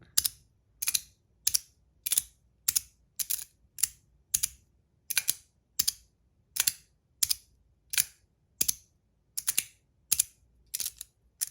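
3D-printed magnetic fidget slider clicking back and forth again and again, its magnets snapping it into place about twice a second, some clicks doubled.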